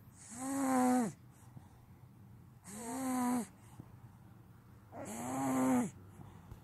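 Snoring: three snores about two and a half seconds apart, each lasting about a second on a steady tone that drops in pitch at its end.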